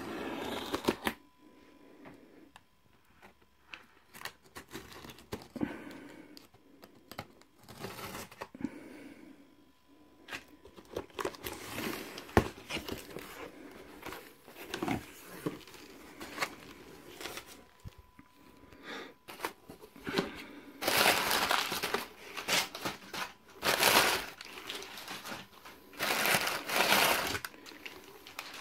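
A cardboard parcel being opened by hand: packing tape slit and torn, cardboard flaps handled with scattered clicks and scrapes, then loud rustling of crumpled newspaper packing in several bursts near the end.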